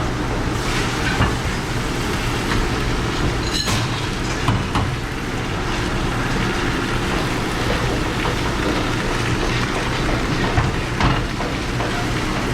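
Steady machine noise of a commercial kitchen dish room, with a few clinks and knocks of dishes being handled.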